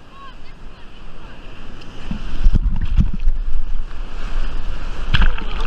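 Breaking surf and whitewater rushing around the microphone, with wind on the microphone. From about two seconds in come loud, irregular thuds and splashes of water close to the microphone.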